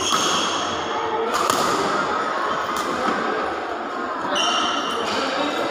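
Badminton play in a large echoing hall: a few sharp racket strikes on the shuttlecock and short high squeaks of shoes on the court floor, over steady hall chatter.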